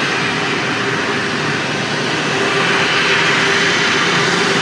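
Jet engines of a twin-engine Airbus A330 airliner running as it rolls along the runway: a loud, steady whooshing noise with a steady hum underneath.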